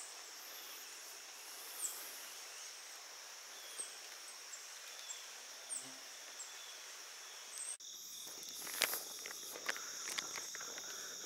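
Faint steady insect chorus, a continuous high-pitched trill, with short high chirps every couple of seconds. About eight seconds in the sound cuts and a scatter of sharp clicks joins the chorus.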